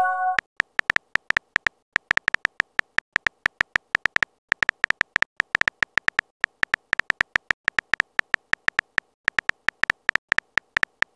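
Phone keyboard typing sound effect: a run of short, sharp clicks, irregular and several a second, as a message is typed. It opens on the tail of a short message-sent chime.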